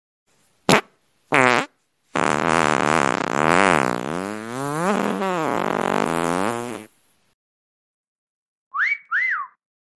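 Fart sound effect: a short pop, a brief blast, then a long fart of about five seconds whose pitch wavers up and down. Near the end, a two-note wolf whistle: a rising whistle, then one that rises and falls.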